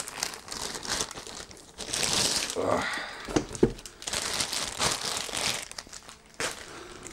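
Clear plastic packaging bag crinkling and rustling as it is pulled off a boxed product and handled, in irregular bursts with a couple of soft knocks in the middle.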